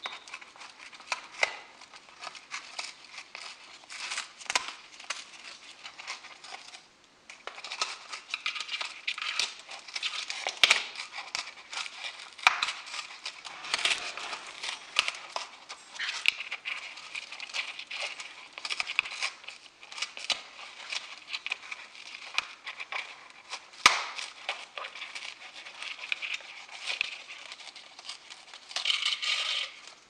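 African grey parrot chewing and tearing at a hanging cardboard and palm-leaf foraging toy: a continuous run of crinkling and crackling with sharp snaps, pausing briefly about seven seconds in.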